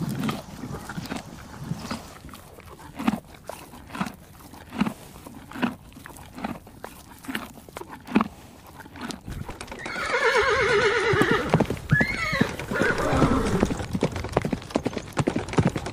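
Horses: quiet, irregular thumps and clicks at first. About ten seconds in, a horse whinnies loudly with a long quavering call, over hooves clopping on a dirt track.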